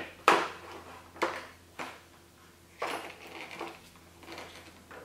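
A screwdriver and plastic wiring parts being handled in a motorcycle's battery compartment: a handful of separate sharp clicks and knocks, the loudest just after the start.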